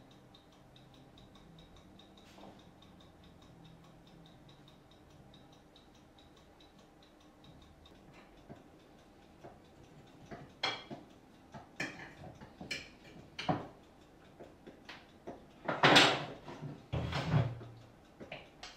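A clock ticking steadily and faintly, then from about halfway a run of irregular clinks, knocks and clatters of a plate and cutlery being handled, the loudest two near the end.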